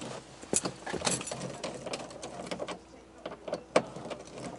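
Scattered light clicks and rattles of a screwdriver with a T15 Torx bit working a screw out of a truck's plastic interior door panel, with one sharper click a little before the end.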